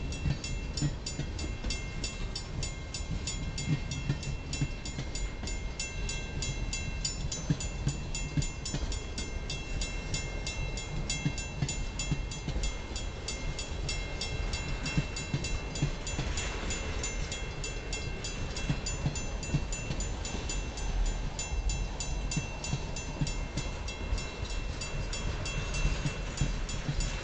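Freight train's railroad tank cars rolling past: a steady low rumble of steel wheels on rail, with irregular thuds and clicks as the wheels cross the rail joints.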